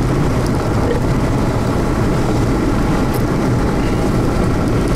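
Steady road and wind noise of a vehicle moving along a highway, heard from inside the cabin as a loud, even rumble.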